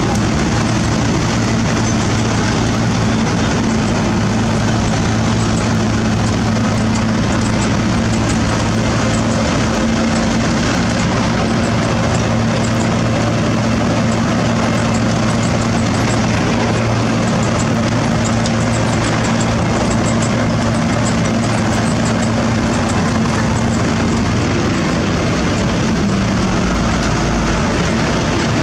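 Heavy diesel engines of road-milling equipment running steadily: a Sakai ER501F cold-milling machine and dump trucks. The result is a constant loud drone with a low, steady engine hum underneath.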